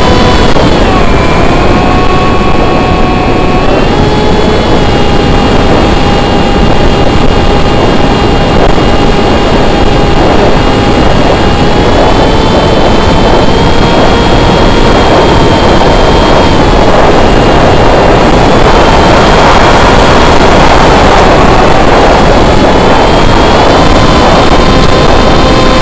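Brushless electric motor and pusher propeller of an S800 foam flying wing in flight: a steady whine whose pitch drops about a second in, climbs again around four seconds, and keeps shifting up and down with the throttle. A heavy rushing noise runs underneath.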